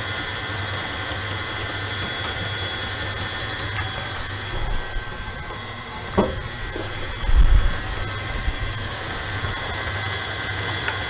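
Stand mixer motor running steadily with a whine, beating cream cheese batter. A short knock comes about six seconds in, and a low thump about a second later.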